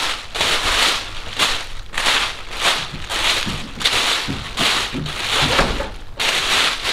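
Black plastic garbage bag crinkling as it is handled and packed, in uneven bursts about two a second.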